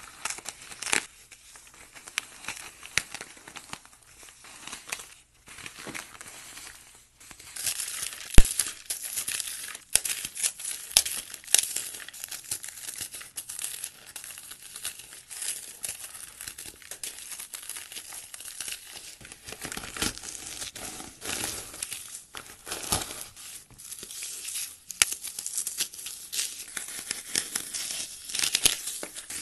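Hands crushing and crumbling paste-coated floral foam: a crisp crunching and crackling made of many small snaps, sparse at first and denser from about seven seconds in. One sharp crack stands out about eight seconds in.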